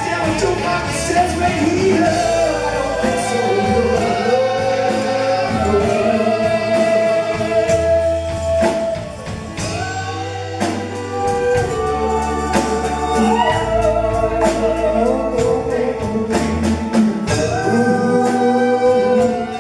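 Live rock band playing a song, with lead singers and backing vocals over drums, heard loud through a hall's PA; the music dips briefly about halfway through.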